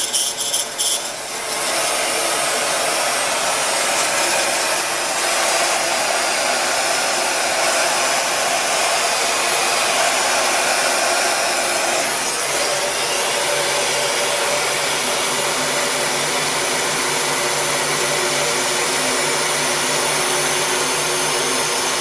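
Electric heat gun switched on about a second and a half in and blowing steadily, its fan hiss shifting slightly in tone about halfway through, as it shrinks heat-shrink tubing over a wire terminal.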